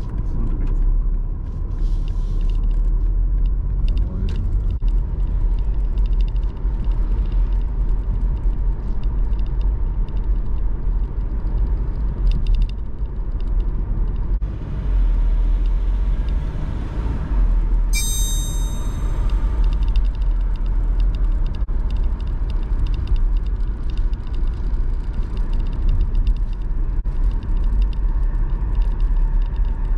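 A car running along a city street, heard from inside the cabin: a steady low rumble of tyres and engine. About eighteen seconds in there is a brief high ringing.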